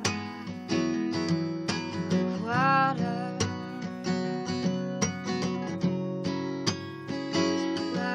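Acoustic guitar strummed in chords, a steady run of strokes through the passage.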